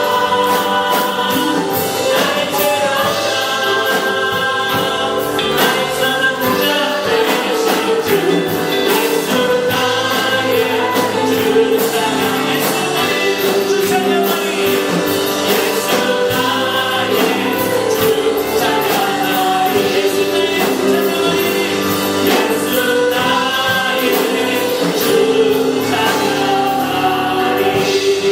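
Group of voices singing a Korean Christian praise song in unison, with band accompaniment and a steady drum beat.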